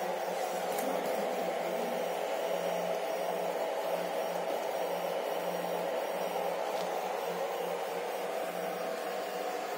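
Electric fan running with a steady whir, under a low hum that comes and goes irregularly.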